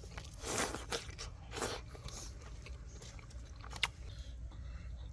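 Close-up eating sounds: crunchy bites and chewing of food, with three crunches in the first two seconds and a sharp click near four seconds.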